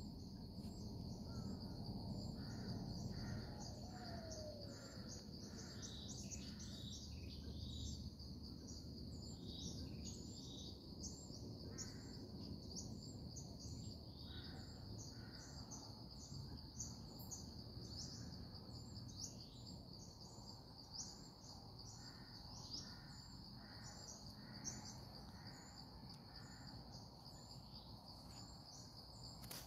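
Faint outdoor ambience: a steady high-pitched insect drone with rapid chirps above it, and a bird calling in series of repeated notes, most strongly in the first few seconds and again in short bouts later, over a low rumble of background noise.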